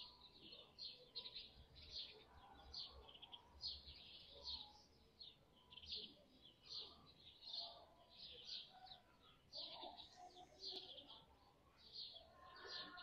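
Faint chirping of small birds, many short high chirps a second in a steady stream.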